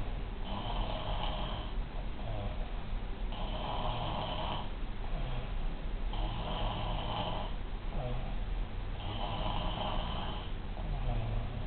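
A sleeping person snoring very loudly, like thunder: a long snore about every three seconds, four in all, each lasting over a second, with quieter low breathing sounds between.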